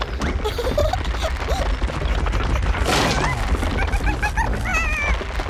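Cartoon sound track of squeaky, wordless character calls that glide up and down, over a steady low rumble. A brief noisy crash comes about three seconds in, then a run of quick high chirps and a warbling trill near the end.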